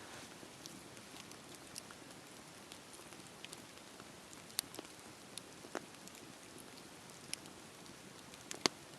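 Wood bonfire crackling: a steady soft hiss broken by scattered sharp pops at irregular moments, the loudest near the end.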